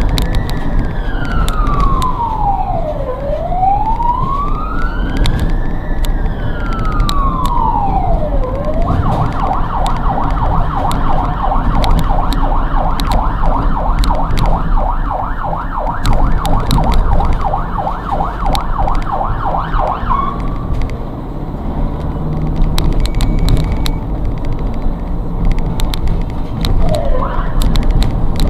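Ambulance siren heard from inside the responding ambulance: a slow wail rising and falling, switching about nine seconds in to a rapid warbling yelp that stops about twenty seconds in, then a brief siren chirp near the end. Steady engine and road noise runs underneath.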